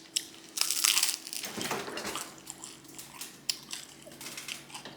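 Crunchy food being bitten and chewed close to the microphone: a loud crunching bite about half a second in, then a run of smaller crunches and clicks of chewing.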